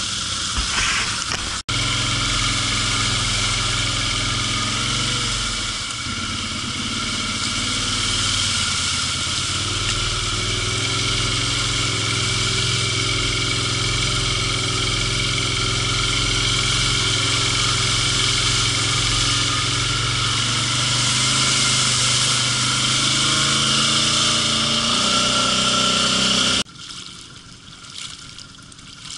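An ATV engine running steadily under load as the quad ploughs through deep water, with the rush of water spray. About 27 s in it cuts off abruptly, leaving quieter trickling water.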